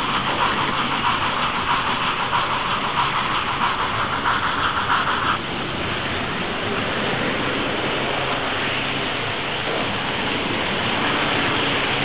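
OO gauge model train running along the layout track close to the microphone: a steady hissing run noise with a fast rattling buzz on top that cuts off suddenly about five seconds in.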